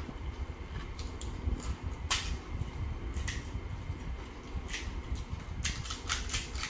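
Crisp fuchka (panipuri) shells cracking as fingers poke holes in them: a string of short, sharp crunches, several in quick succession near the end, over a low steady hum.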